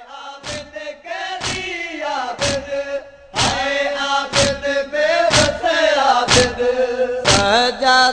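Group of men chanting a nauha lament in long held notes, with a chest-beating (matam) stroke about once a second. The chant and beats grow louder about three seconds in.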